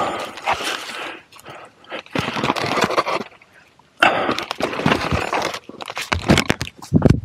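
Mountain bike clattering down a rocky, rooty trail: tyres crunching and scraping over dirt and stones with the bike rattling on each hit, in bursts with a short lull about halfway. A heavy thump comes near the end.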